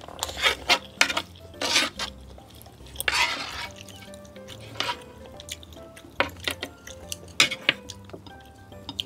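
Close-miked eating sounds: wet chewing and smacking of braised mackerel and radish, with a metal spoon scraping and clicking against a ceramic plate, the longest scrape about three seconds in.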